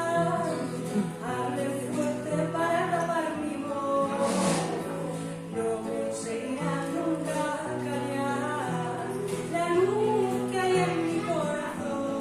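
Live acoustic music: a woman singing a melody over an accompaniment of long held low notes.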